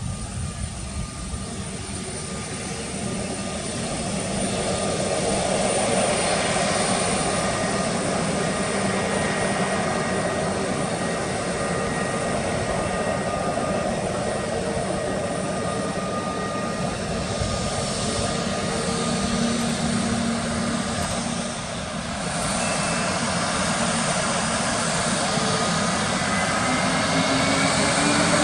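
Airliner engines at takeoff power: the noise builds over the first few seconds, then holds steady with a few thin whining tones over it.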